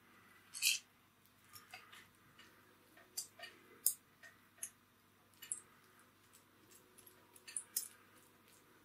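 Faint, irregular clicks and small taps of hands working with the pastry on a kitchen counter, about a dozen at uneven intervals.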